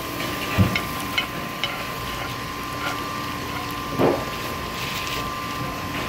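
Yellowtail pieces and kuruma prawns frying in soy sauce and the fish's own fat in a large metal pan, a steady sizzle, with a metal spoon clinking and knocking against the pan a few times as the glaze is spooned over. A steady hum runs underneath.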